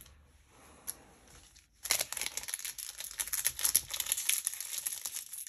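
Foil Magic: The Gathering booster-pack wrapper crinkling and tearing: a dense crackle that starts about two seconds in, after a faint click.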